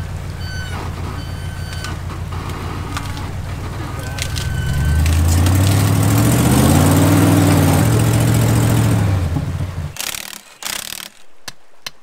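Off-road rig's engine running at low speed, then revving up and easing back down as the truck drives its front end up onto a rock to lift the wheel with the flat tyre. A few sharp hammer knocks near the end.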